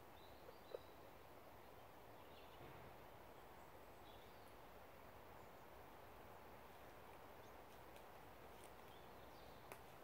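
Near silence: faint, steady outdoor ambience with a few faint, short bird chirps scattered through it.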